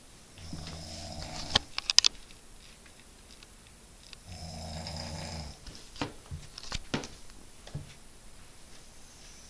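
A man snoring heavily: two long, low snores about four seconds apart, each followed by a few sharp clicks.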